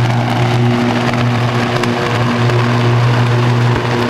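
Sustained high-voltage arc across a substation switch, uncontrolled: a loud, harsh crackling buzz over a deep steady hum.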